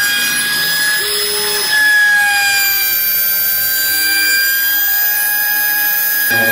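Homemade CNC router running: a steady high whine with several tones above it, and a motor whir that glides up and down in pitch as the axes speed up and slow down.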